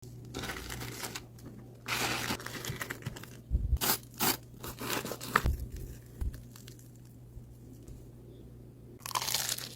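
Food-preparation handling noises: irregular tearing and crinkling rustles with a few sharp knocks, over a steady low hum.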